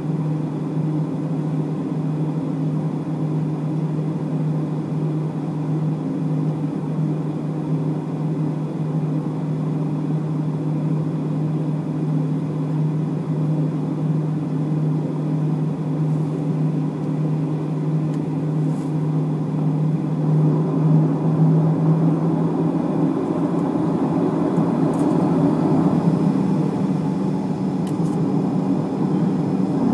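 Cabin sound of a Boeing 737-800 taxiing, its CFM56-7B engines running at low thrust: a steady low hum under a rush of air and machinery. In the last several seconds the rush grows louder and a faint rising whine sets in as the engines begin to spool up for takeoff.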